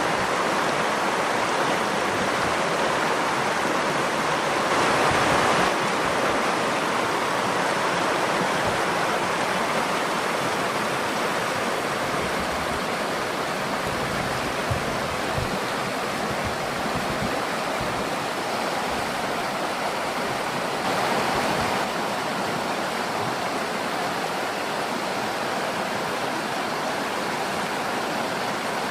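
Nakdong River water flowing steadily, a dense even wash with slight swells about five seconds in and again around twenty seconds.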